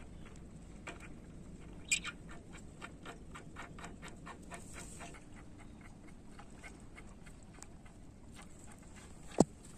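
Light metallic clicks in a quick run, about six a second, as the nuts on the flange bolts joining the outlet pipe to a diesel pump set's pump are turned by hand; one sharp knock near the end.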